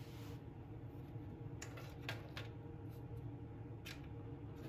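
A few light clicks and taps from small metal tools and parts being handled on a workbench, over a steady low hum.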